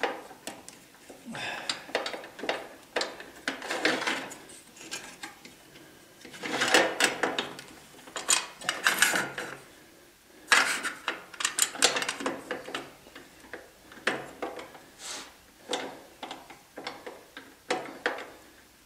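Irregular clicks, rattles and scrapes of metal parts on a Chicago Electric 10-inch table saw being handled and adjusted by hand, with several louder clattering bursts.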